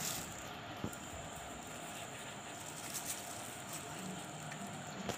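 Steady low background noise with a few soft taps and plastic rustles as plain flour is tipped from a plastic bag onto a steel plate.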